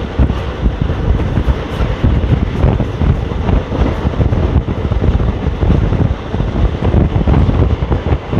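ICF passenger coach running at speed, its wheels rumbling and clattering continuously over the rails, with wind buffeting the microphone.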